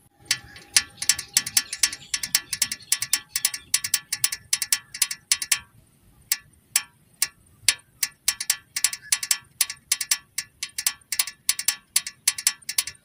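Small plastic toy tractor's pull-back gear motor ratcheting as it is pushed along the floor by hand: rapid, uneven clicking that thins out for a couple of seconds partway through.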